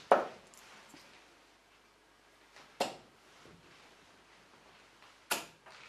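Steel-tip darts striking a bristle dartboard: three sharp thuds, roughly two and a half seconds apart, the first the loudest.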